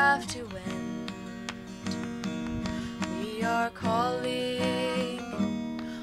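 Acoustic guitar strumming and picking in an instrumental passage of a slow folk-style song.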